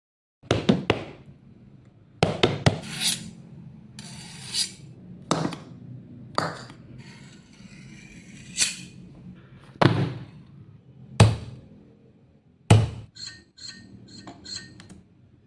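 Foley sound effects: about ten separate knocks and thuds with scraping and rubbing noise between them. Near the end come four or five quick ringing taps in a row.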